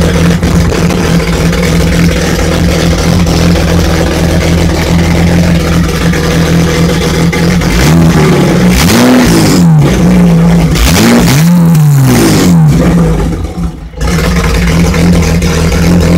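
BMW M20B25 straight-six idling, revved twice by hand at the throttle about nine and eleven seconds in, the revs rising and falling back each time; the level briefly drops away after the second rev before the idle settles again. The idle is one the owner calls rough, with no O2 sensor fitted yet.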